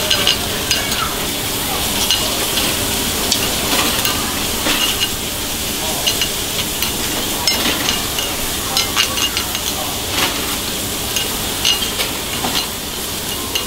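Sliced meat and a fried egg sizzling steadily on a hot iron sizzling plate, while a metal spoon stirs the meat, scraping and clinking against the plate in short clusters several times.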